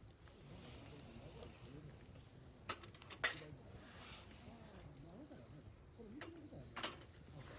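Utensils clinking against camp dishes, a few sharp clinks in two small clusters, about three near the middle and two near the end.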